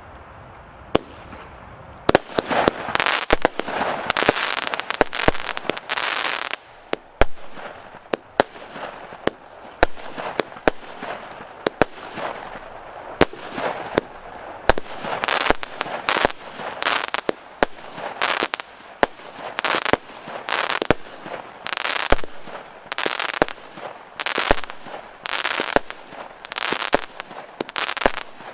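Piromax Panzer, a 36-shot 20 mm consumer fireworks cake, firing. After a single pop about a second in, the shots begin about two seconds in, thick and fast for a few seconds, then in a steady run of somewhat more than one shot a second, each sharp report trailed by the brief crackle of its burst.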